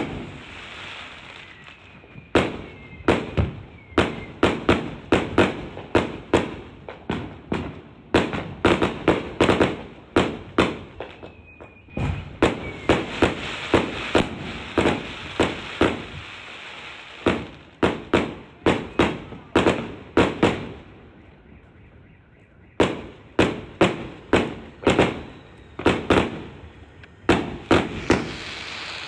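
Fireworks going off in a dense barrage: dozens of sharp bangs in quick succession, each with a short echoing tail, over a steady crackle. A couple of faint whistles are heard, and the bangs drop away for about two seconds a little past the middle before resuming.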